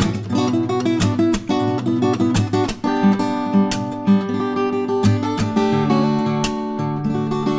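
Acoustic guitar music: strummed chords mixed with plucked notes that ring out, moving through changing chords at a steady pace.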